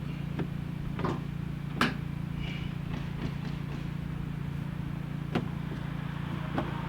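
About six short, sharp knocks and clicks, spaced irregularly, from handling and fitting a car's front bumper and its mounting bracket. A steady low hum runs underneath throughout.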